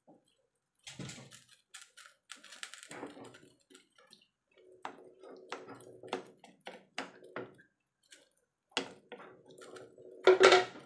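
Wooden spatula stirring chayote and potatoes in a metal pot: a run of light clicks and knocks against the pot, with a louder clatter near the end.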